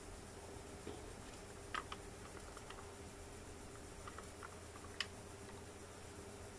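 Akai reel-to-reel tape deck fast-winding tape from one reel onto the other: a faint steady hum with a few light ticks.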